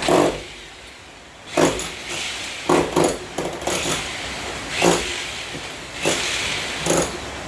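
Hammer blows during an air conditioner installation: about eight sharp strikes at uneven intervals, roughly one a second, each with a short ring.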